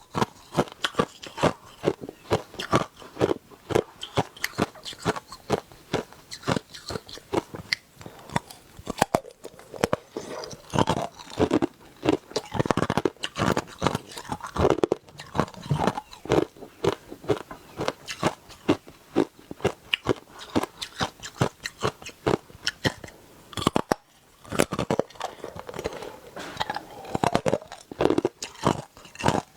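Hard ice being bitten and chewed close to the microphone: rapid, loud crunching and cracking, several crunches a second, with a brief pause about three-quarters of the way through.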